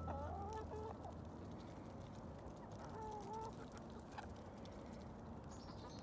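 Hens clucking faintly as they feed: a few short, wavering calls in the first second and another about three seconds in.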